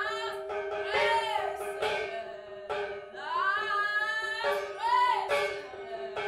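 Operetta singing: a voice sings a melody in short phrases over a steady held drone of two low notes in the accompaniment.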